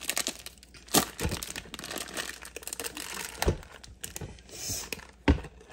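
Plastic ham wrapping crinkling and rustling as a spiral-sliced ham is pulled from it and pushed down into a slow-cooker crock, with a few dull knocks along the way.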